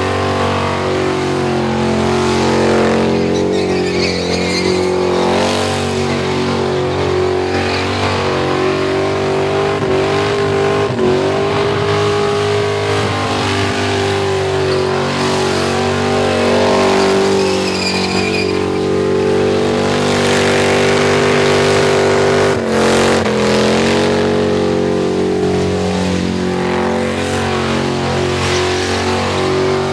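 Holden VN Commodore's V8 held at high revs through a burnout, the rear tyres spinning on the pad; the revs sag briefly a few times and climb back, with tyre squeal now and then.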